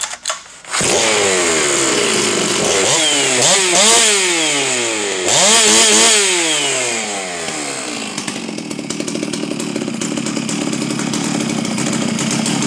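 Ported Stihl MS 660 two-stroke chainsaw with a tuned exhaust starting about a second in, then revved hard and let drop a few times, the pitch climbing and falling sharply. It settles into a steady idle for the last few seconds.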